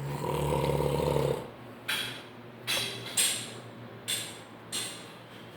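A man snoring: one loud, rumbling snore lasting about a second and a half, followed by five short, sharp, breathy puffs.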